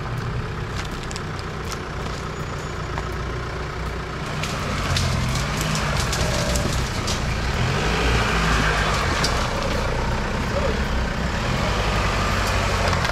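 Off-road 4x4 engine running under load, getting louder about four seconds in, its pitch rising and falling as the throttle is worked, with scattered knocks and clicks over it.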